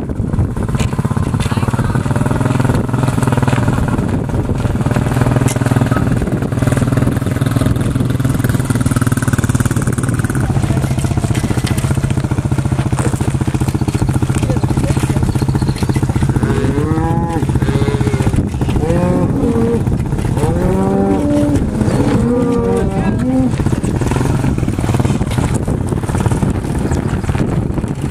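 Black Angus cattle mooing several times in the second half, each call rising and falling in pitch, over the steady running of a vehicle engine.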